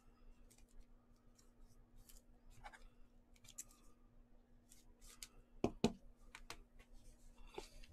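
Trading card being slid into a plastic penny sleeve and rigid top loader: faint rustling and light ticks of plastic, with two sharp clicks in quick succession about six seconds in, over a faint steady hum.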